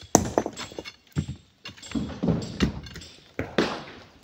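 Hammer and steel pry bar striking stone as boulders are broken up: a run of irregular hard knocks and clinks, the loudest just after the start.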